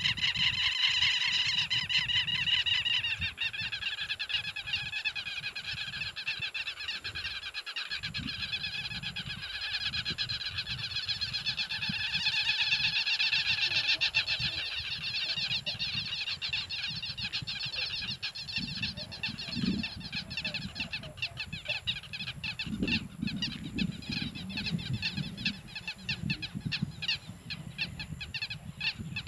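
Dense chorus of wild animals calling in rapid, repeated pulses. The loudest calling stops about three seconds in and swells again around the middle, over a low, gusty rumble of wind on the microphone.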